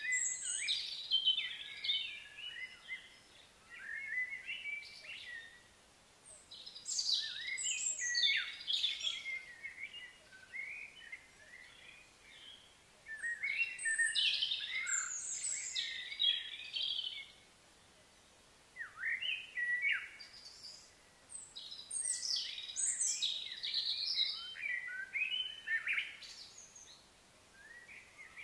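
Songbirds singing in repeated bursts of quick, high chirps and whistles, each bout a few seconds long with short lulls between, over a faint outdoor hiss.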